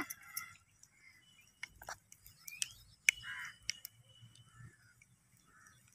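Mustard seeds popping and spluttering in hot oil in a clay pot, a scattering of sharp irregular pops. This is the tempering stage, when the oil is hot enough to make the seeds burst.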